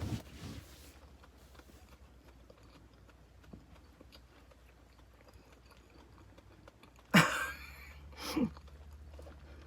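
Faint chewing of a soft marshmallow Peeps candy. Near the end come two short sounds from the eater's throat, the first louder.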